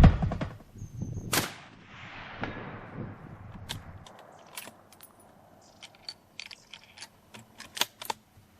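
A single rifle shot from a Weatherby Vanguard in .30-06 about a second and a half in, its report trailing off in a long echo over two to three seconds, followed by a scatter of faint small clicks.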